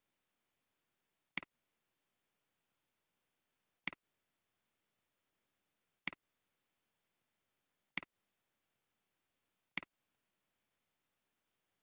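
Computer mouse clicking five times, single sharp clicks about two seconds apart, each with a fainter release click, against near silence.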